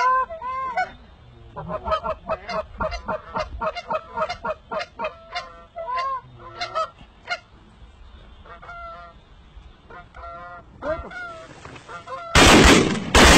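Flying waterfowl honking over and over in short, arched calls. Loud gunshots break in near the end.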